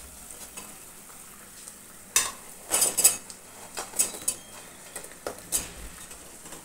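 Sugar syrup and ghee bubbling and sizzling in a metal kadhai, with a steel ladle stirring and clinking against the pan. Fried bread cubes are tipped in midway, with a run of sharp knocks and clinks.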